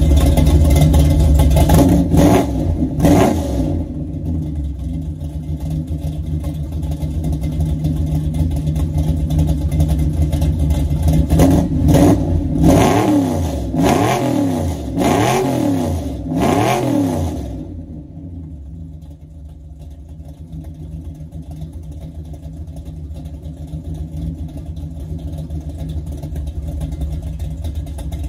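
Dodge Dart Swinger's 440 big-block V8 idling, blipped twice a couple of seconds in. Around the middle it is revved in a series of about five quick rising-and-falling blips, then it drops back to a quieter idle.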